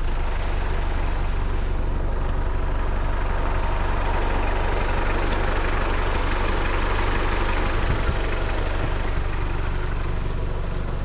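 A vehicle engine running steadily with a low hum, under an even rush of road noise.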